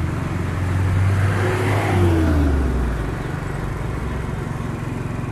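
Yamaha motor scooter being ridden along a road: engine running with wind noise on the microphone, swelling about a second in and easing off after about three seconds, with a brief falling whine near the two-second mark.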